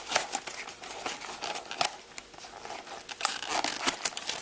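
Cardboard blind-box packaging being pried and torn at by hand, giving irregular crackling, scraping and tearing with sharp clicks. The box is hard to open: the pull tab has not been found.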